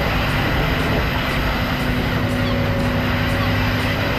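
Fishing trawler's engine and deck machinery running steadily, with a low hum and a faint tone that comes and goes.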